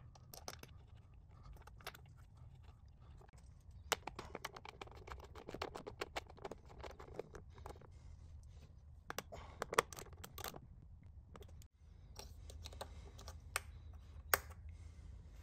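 Socket wrench on an extension being worked on a spark plug in its well: faint, quick, irregular metal clicks and scrapes, sped up. The sound drops out briefly near the end and comes back as a faint hiss.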